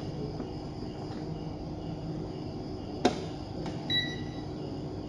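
A sharp click about three seconds in, followed less than a second later by a short, high electronic beep from a Richmeter digital multimeter set to its ohm range, over a steady low background hum.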